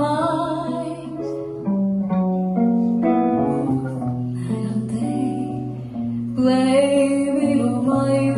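Slow jazz ballad played live on archtop guitar and grand piano, with a woman's singing voice in places.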